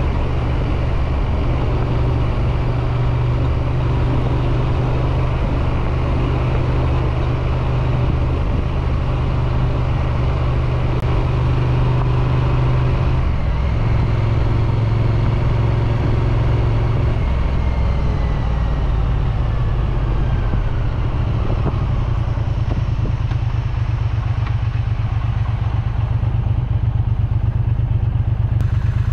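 Triumph Street Twin's parallel-twin engine and exhaust under way, heard from the rider's chest. The engine note holds steady, then shifts a couple of times about halfway through. Near the end it settles into a slower, lumpier beat.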